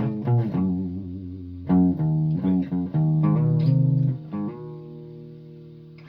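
Amplified guitar through effects playing a string of short notes, some wavering in pitch, then a note held for about three seconds that slowly fades.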